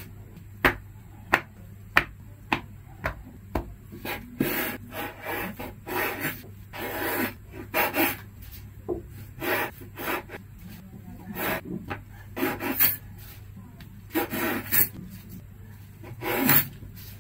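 A knife cutting the crusts off slices of bread on a wooden cutting board: short scraping, crunchy strokes through the crust, with the blade knocking on the board. A string of sharp single taps on the board comes in the first few seconds, before the cutting begins.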